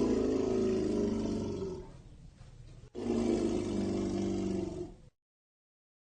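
Elephant giving two low, growling calls, each about two seconds long, with a short pause between them.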